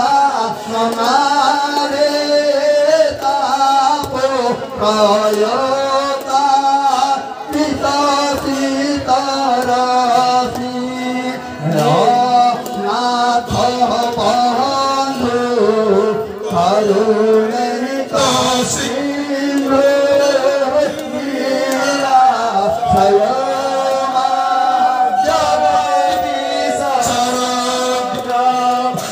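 A group of men singing a Hindu devotional chant to the goddess, their voices sliding between notes and sometimes overlapping, over a steady held low note.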